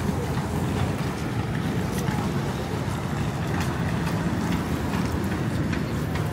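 Steady low rumble and hiss of city street noise, with a few faint ticks.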